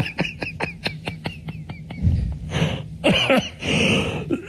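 A man coughing hard, harsh dry coughs from a throat raw with laryngopharyngitis, which he says is making him cough up streaks of blood. The coughing comes in the second half, after a quick run of ticking clicks, about six a second, in the first two seconds.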